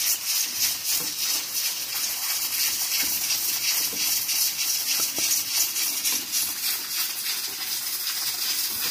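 Sliced onions, fried brown, sizzling in hot oil in a pan: a steady high hiss, with faint scrapes of a wooden spatula stirring and lifting them.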